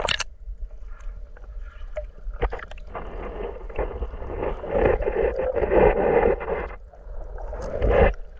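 Water heard through a submerged camera: a short splash as it goes under, then muffled rushing and crackling through the middle with scattered knocks, and a loud thump near the end.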